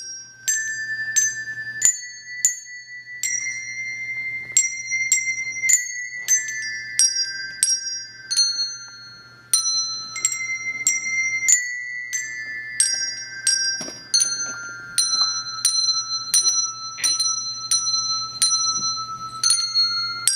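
Handbell choir playing a melody: bells struck one after another, about one to two notes a second, each note ringing on and overlapping the next.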